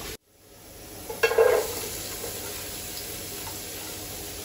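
Sliced onions tipped from a plate into hot olive oil in a pot: a short burst of clatter and sizzle about a second in, then steady sizzling. The sound drops out for a moment at the very start.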